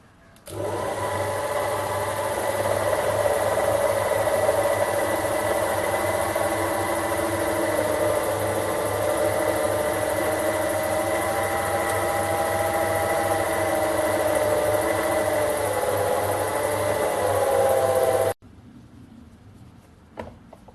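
Sherline micro lathe's electric motor running steadily with a whine of several pitches, starting about half a second in and stopping abruptly near the end.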